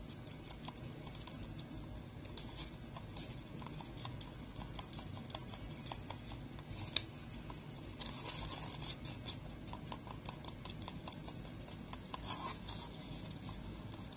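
Stick stirring two-part epoxy resin in a mixing cup: a steady run of small scrapes and ticks as the stick drags and taps against the cup.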